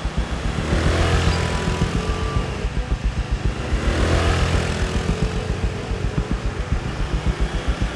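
Motorbike engine running with a fast, even pulse, while traffic noise swells twice as vehicles pass.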